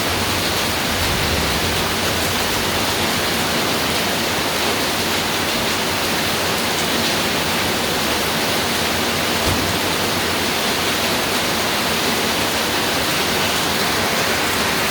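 Steady, even rain falling on a roof, a continuous hiss without pauses.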